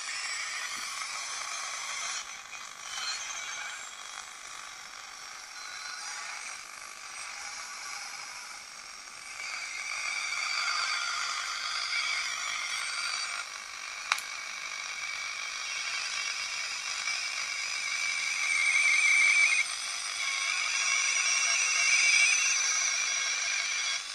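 Tesla 563A valve radio's loudspeaker giving hiss and crackle with wavering whistling tones, thin and with no bass. It grows louder about ten seconds in and again near the end, with one sharp click in the middle.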